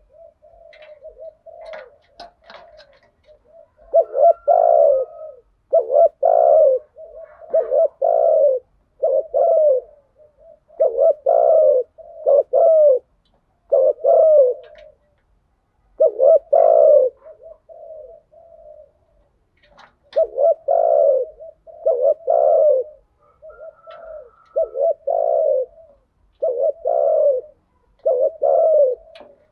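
Spotted dove cooing: soft low coos at first, then from about four seconds in a long run of loud, low coos at about one a second, with a short pause midway. This is the fast, excited 'thúc gù' coo series used to rouse captive doves.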